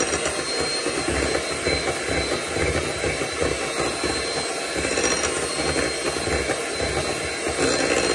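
Mueller electric hand mixer running steadily with a thin high whine, its beaters churning through thick chocolate brownie batter in a glass bowl.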